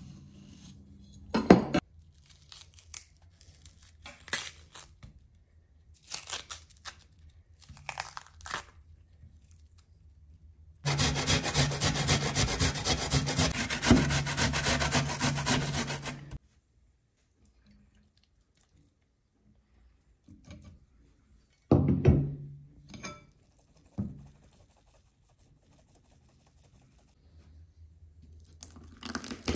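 An onion being sliced with a kitchen knife on a wooden cutting board, a scattering of separate cuts, then an onion rubbed hard against a stainless steel box grater: a loud, continuous rasping for about five seconds. Later come a couple of sharp knocks on the board and, near the end, knife cuts into garlic cloves.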